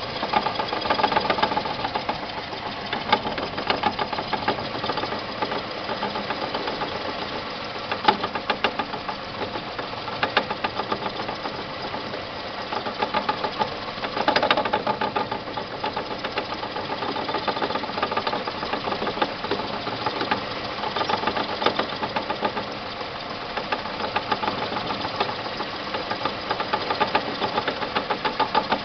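2002 Renault Clio running with a rapid, continuous knocking and clicking, with now and then a louder clack. The owner traces the noise to the tripod joint in the inner CV joint housing, while his mechanic says the fault is in the engine.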